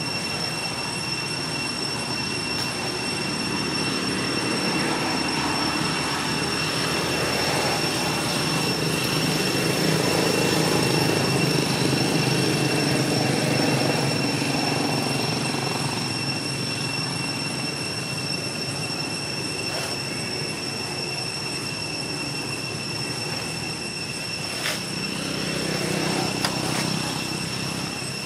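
Outdoor ambience: a steady high-pitched drone over a low rumbling noise that swells in the middle and fades again, with another small swell near the end.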